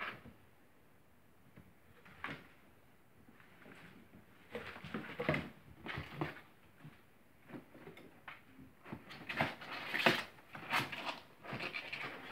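Kittens playing: irregular scuffles, taps and rustles, with a kitten scrabbling into a cardboard box near the end.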